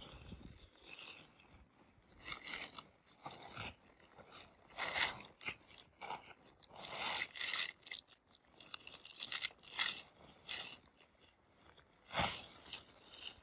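Nylon tent fabric and a plastic tarp rustling and crinkling in irregular bursts as the tent body is unfolded and spread out by hand, with the sharpest bursts about five seconds in and near the end.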